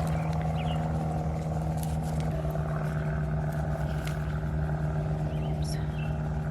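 A steady engine drone, its pitch shifting slightly about two seconds in, with a few faint scrapes and ticks.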